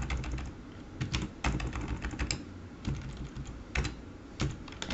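Computer keyboard typing: keystrokes clicking in short, irregular bursts with pauses between them.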